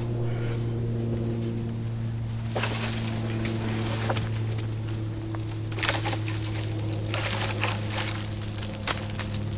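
Dry branches and leaf litter rustling and snapping as they are handled, in several bursts, the loudest a little past the middle. A steady low engine drone runs underneath.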